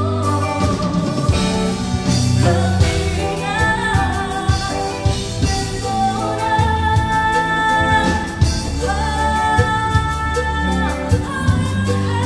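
Live Tejano cumbia band playing, a woman singing lead over accordion, electric guitar, bass, drum kit and congas, with a steady dance beat.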